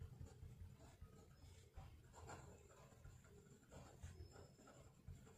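Faint scratching of a pen writing on paper on a clipboard, in short irregular strokes.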